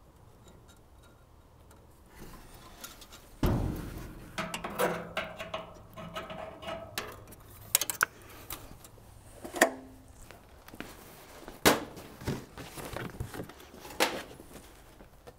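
Metal parts being handled in a car's engine bay: a heavy clunk about three and a half seconds in, then scraping and rattling, and several sharp knocks spread through the rest.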